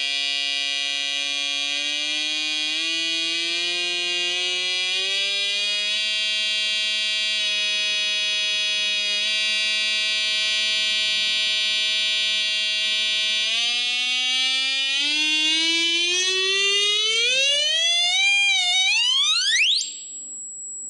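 Homemade Morse code practice oscillator sounding a continuous buzzy tone through a small loudspeaker, with the key held down. The tone starts suddenly and creeps up in pitch, holds steady for several seconds, then sweeps up steeply over the last several seconds into a thin high whine as its pitch potentiometer is turned.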